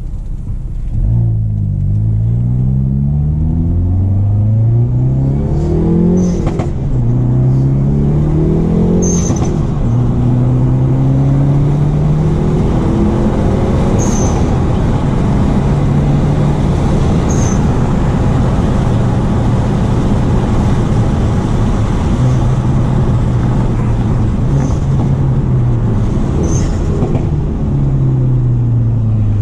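Hyundai Veloster N's turbocharged 2.0-litre four-cylinder accelerating hard, its pitch rising through several pulls and dropping back at each shift or lift, heard from inside the cabin. Between pulls the HKS SSQV4 pull-type blow-off valve vents several brief, high-pitched purges.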